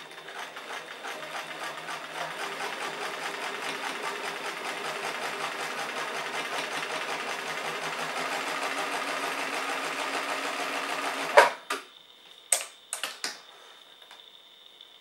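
Bernina Record 930 domestic sewing machine stitching through a single layer of rubber bicycle inner tube. It picks up speed over the first couple of seconds, runs steadily for about eleven seconds, then stops with one sharp clack. A few lighter clicks follow as the work is handled at the machine.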